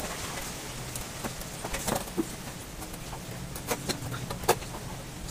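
Cutter knife slicing through the rubber of a nylon-ply car tyre, with scattered sharp clicks and ticks as the blade works and the cut rubber is pulled apart, the loudest about four and a half seconds in. A faint steady low hum runs underneath.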